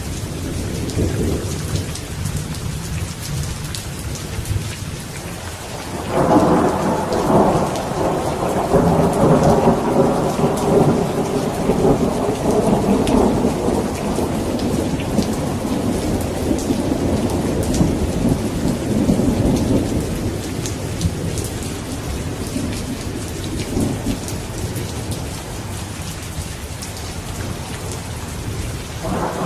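Steady rain with a rumble of thunder that breaks in suddenly about six seconds in, rolls on for over ten seconds and slowly fades. Another thunderclap starts right at the end.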